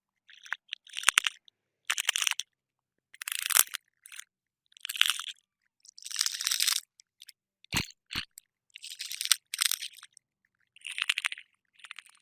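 Cockroach wing sound effect: short, dry, crackly fluttering bursts about once a second, each roughly half a second long, with silence between.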